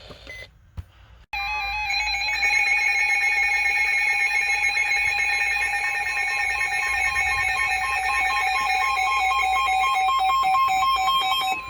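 Emergency alert tones from weather alert radio receivers: a loud, continuous alarm of several steady and warbling tones sets in about a second in. It is the alert signal that comes before a new tornado warning message.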